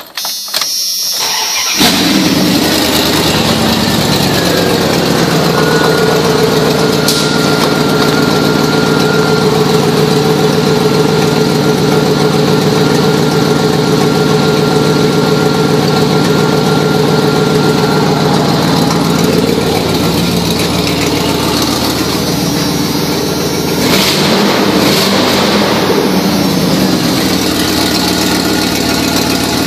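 1994 Dodge Ram 350 van engine cranking briefly and catching about two seconds in, then idling steadily. It runs pretty loud, which the seller puts down to the exhaust.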